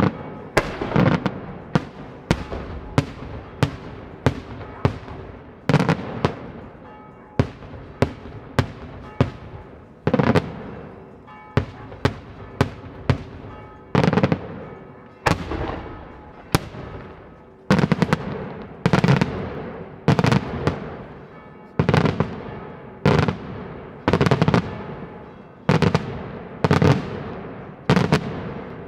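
Daytime fireworks display: aerial shells bursting in a long, rapid series of loud bangs, about one or two a second and often in quick clusters, each trailing off in an echo.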